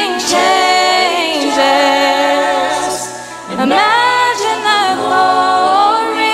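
A woman's solo voice singing a slow gospel song into a microphone: two long phrases of held, gliding notes, with a short breath between them about three and a half seconds in.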